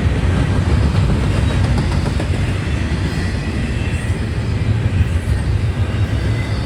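CSX intermodal freight train of well cars and spine cars rolling past, a steady rumble of wheels on rail.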